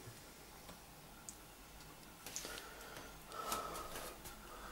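Quiet room tone with a few faint clicks and a short soft burst of noise about three and a half seconds in.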